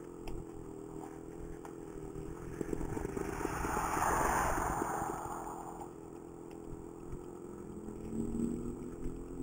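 Hybrid scooter rolling along on electric power while its 49cc two-stroke engine runs steadily at idle. A rushing noise swells and fades around the middle, with a little light clatter.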